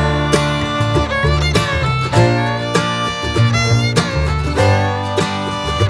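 Background music: upbeat country-style tune with fiddle and plucked guitar over a steady bass line.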